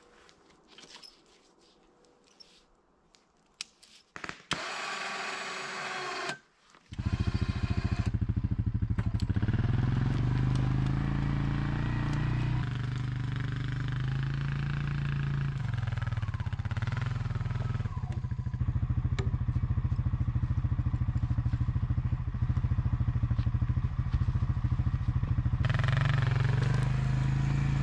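ATV (four-wheeler) engine starting about seven seconds in and then running steadily as the quad is ridden, its pitch rising and falling a little with the throttle.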